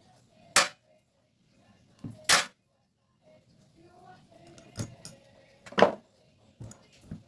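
Carburetor parts and hand tools being handled and set down during a carburetor teardown: six sharp knocks and clicks, the loudest about half a second in, two seconds in and near six seconds.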